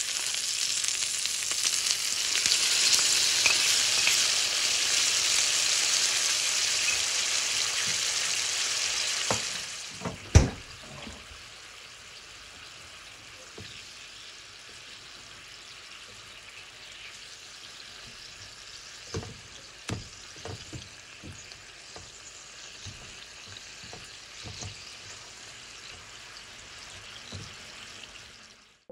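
Meat-wrapped kabocha squash wedges sizzling in oil in a frying pan. About ten seconds in there is one sharp clack, and the sizzle drops to a much quieter bubbling of sauce reducing in the pan, with occasional light clicks from tongs.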